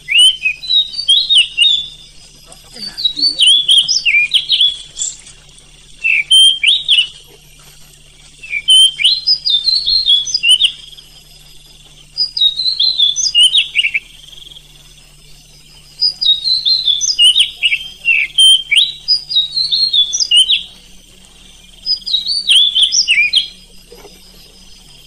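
Oriental magpie-robin (kacer) singing a loud, rapid run of varied whistled and chattering notes, in bursts of one to five seconds with short pauses between.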